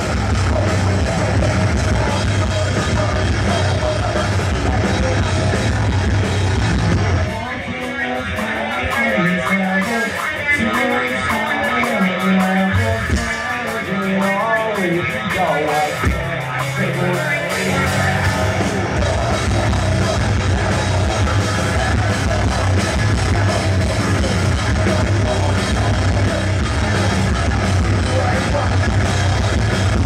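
Live heavy metal band playing loud, with distorted guitars and a drum kit. About seven seconds in, the full band drops back to a thinner passage, and it comes back in full about eleven seconds later.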